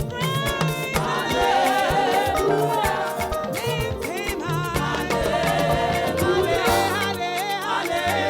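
Upbeat church praise music: singing voices over a bass line and steady percussion.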